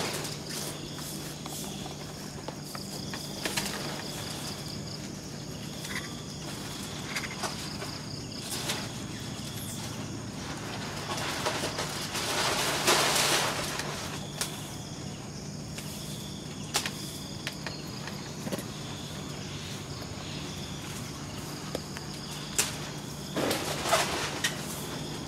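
Insects chirping in a steady high trill that stops and starts, over a low steady hum. Scattered taps and rustles come through it, with a louder rustle about halfway through.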